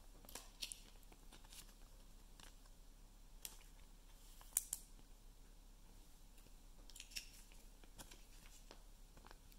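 Trading cards, a plastic card sleeve and foil packs being handled: scattered faint clicks and rustles, with one sharper click about four and a half seconds in.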